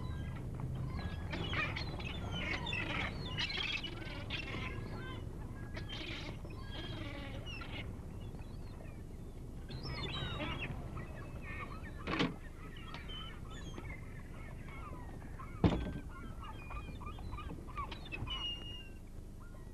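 Gulls calling: a dense flurry of overlapping cries for the first ten seconds or so, then scattered calls. Two sharp knocks land about twelve and sixteen seconds in, the second the loudest sound.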